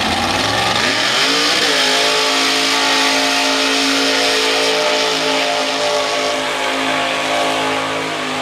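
Chevy square-body mud truck's V8 engine revving up over about a second and a half, then held flat out at a steady high pitch as the truck churns through the mud bog pit.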